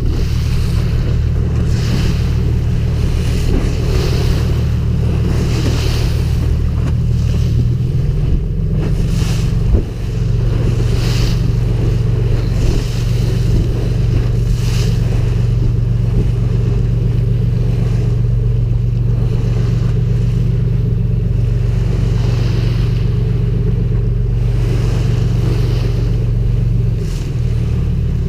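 Charter boat's engine running with a steady low drone, its note rising about nine seconds in and dropping again near the end, while water splashes and rushes along the hull with wind on the microphone in swells every couple of seconds.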